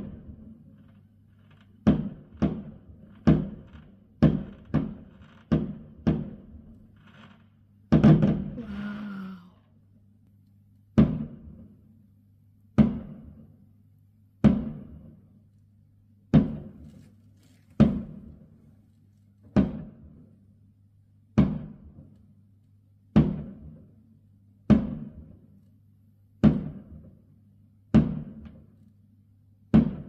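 Aerial firework shells bursting: a quick run of sharp bangs in the first seven seconds, a bigger bang at about eight seconds, then single bangs evenly spaced a little under two seconds apart, each with a short fading tail. A faint steady low hum lies underneath.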